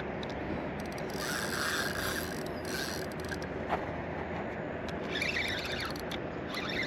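Fishing reel being wound in bursts, a rapid whirring clicking of its gears, with a small mulloway hooked on the line. The reel runs from about a second in to three seconds, again around five seconds, and once more near the end.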